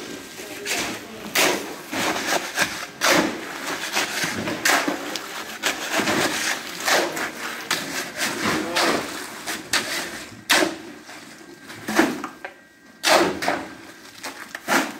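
Shovel scraping through and dumping wet concrete topping mix on a floor, in irregular scrapes and knocks.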